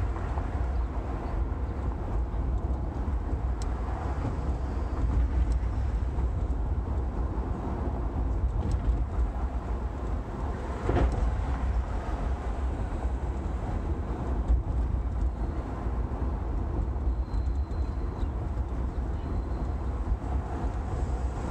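Steady low rumble of a Ford Crown Victoria's 4.6-litre V8 and tyres in stop-and-go city driving, heard from inside the car through the windshield. There is a brief louder knock about eleven seconds in.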